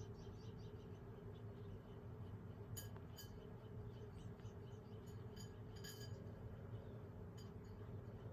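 Faint, short, high chirps of small birds at the feeders, scattered, with a few clearer ones about three and six seconds in, over a steady low hum.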